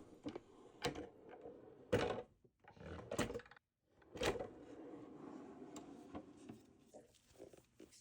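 Small intaglio printing press being pulled by hand: four knocks about a second apart, then a low steady rumble for about two and a half seconds, and a few light clicks near the end.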